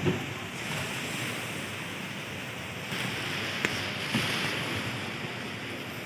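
Beachfront ambience: a steady rushing hiss of wind and surf, with a few short clicks, the sharpest about three and a half seconds in.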